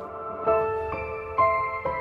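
Soft background music: a slow keyboard melody, a new note about every half second, each one fading away.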